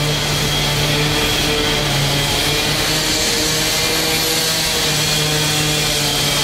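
Street construction-site machinery running loudly and steadily, a dense noise with a constant low hum.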